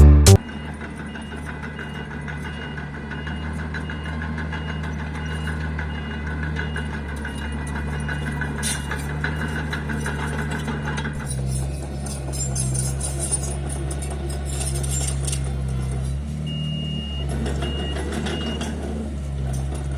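Mini bulldozer's diesel engine running steadily under work, its note shifting about eleven seconds in. A high reversing alarm beeps about twice a second for the first half, and again briefly near the end.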